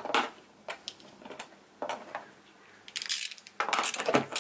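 A screwdriver clicking and scraping as it pries at the plastic top cover of a BMW M54 engine, with scattered small sharp plastic and metal taps. The taps come closer together and louder near the end.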